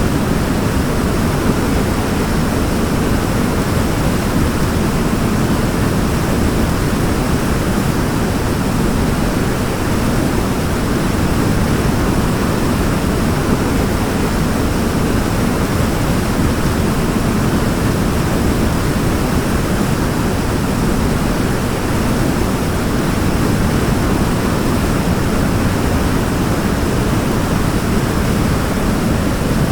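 Waterfall: water falling and splashing in a steady, even rush, deepest in the low range.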